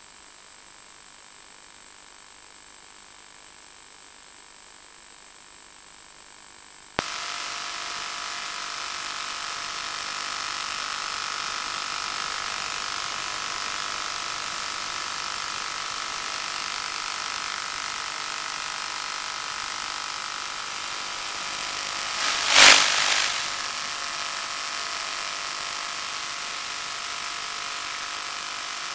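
Audio channel of an analog 1.2 GHz FPV video link, carried through a diversity ground station. It starts as a faint hiss, then about 7 s in jumps suddenly to much louder hissy static with a steady whine. This is the noise the uploader hears when the ground station switches to the patch-antenna receiver. A loud crackle comes once about three quarters of the way through.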